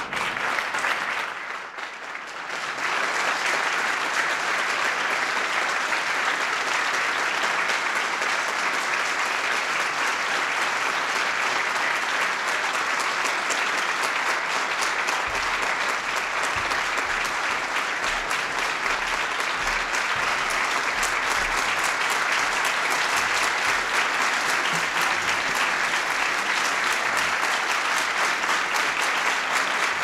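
Audience applauding steadily, building to full strength about three seconds in.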